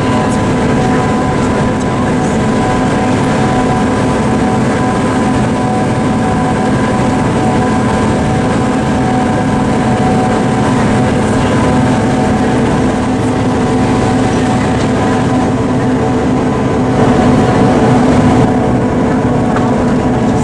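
Cog railway railcar running uphill, heard inside the passenger car: a steady diesel and gear drone with several held tones. The level swells a little near the end.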